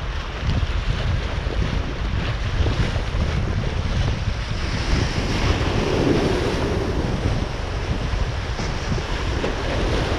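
Wind buffeting the microphone over the wash of waves, with a swell of water noise about six seconds in.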